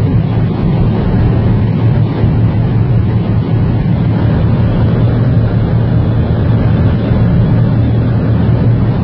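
Mercedes-AMG C63 running at high speed: a steady engine drone under loud, even road and wind noise.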